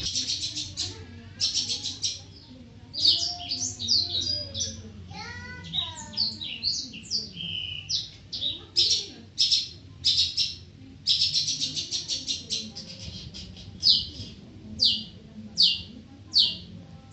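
Long-tailed shrike (cendet) singing a loud, fast, varied song: sharp chattering notes and sweeping whistles, broken by runs of rapidly repeated strokes.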